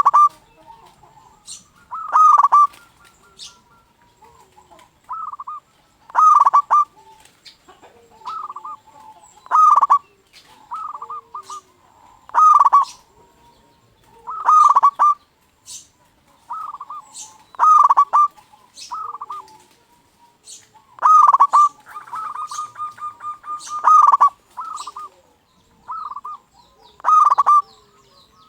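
Local zebra dove (perkutut) singing freely: short cooing phrases repeated every two to three seconds, with one longer rapid run of notes about two-thirds of the way through and faint high chirps between the phrases.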